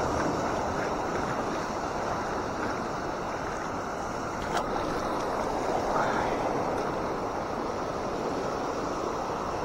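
Sea surf breaking and washing over a rocky shore, a steady rush of water. A single sharp click about halfway through.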